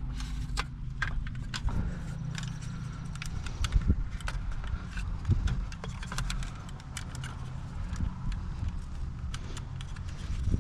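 Scattered small clicks and rattles as steering-wheel parts and tools are handled during reassembly, over a steady low rumble.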